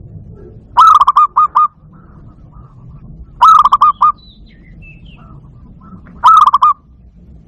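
Barred dove (zebra dove) calling: three bursts of quick, staccato cooing notes, four or five notes to a burst, about two and a half seconds apart, with faint chirping in the background.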